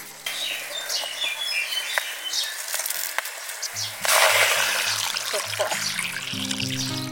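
Water poured from a jug into an aluminium pot of duck eggs, starting about four seconds in and the loudest sound. Birds chirp before it, and soft background music with repeating low notes sets in near the pour.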